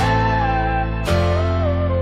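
Background music: guitar chords changing about once a second, with a melody line sliding between notes over a steady low bass.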